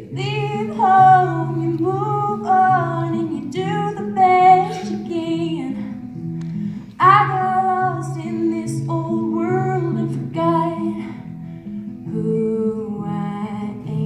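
Music: a woman singing a slow song over plucked acoustic guitar.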